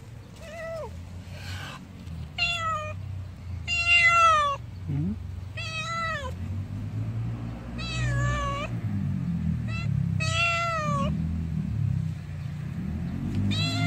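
Black stray cat meowing repeatedly, about eight meows a second or two apart, most falling in pitch at the end, with a low rumbling underneath.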